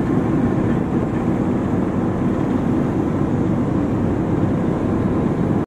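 Boat engine running steadily under way, a low even drone with water rushing past.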